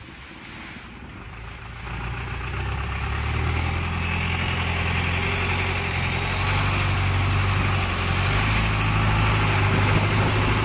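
Long-tail boat's engine running, growing louder from about two seconds in and then holding steady, over the hiss of water rushing past the hull.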